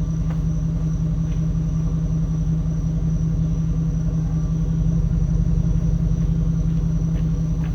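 Dodge Ram pickup engine idling steadily, a constant low hum.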